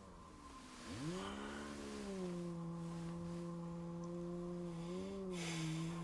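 Electric motor whirring: it starts up about a second in, rising in pitch, then runs at a steady pitch with a slight wobble near the end. One listener takes it for a vacuum cleaner; the other says it is too shrill for one and takes it for a hedge trimmer.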